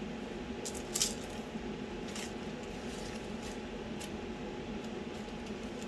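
Soft rubbing and a few light clicks of a rag wiping wood-glue squeeze-out off clamped walnut letters, over a steady hum.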